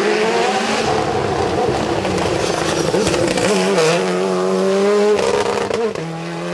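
A hill-climb race car with an Alfa Romeo 4C body, its engine pulling hard out of a hairpin. The revs dip and climb through the bend, then rise steadily, with gear changes about three and a half, five and six seconds in.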